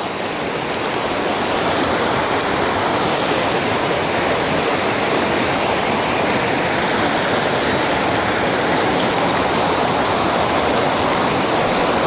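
Rushing water of a fast mountain stream, a loud, even wash that swells a little in the first second or two and then holds steady.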